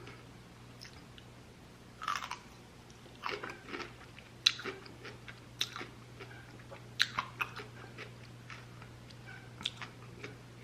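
Close-miked chewing: scattered wet mouth clicks and smacks, a few louder ones, over a faint steady low hum.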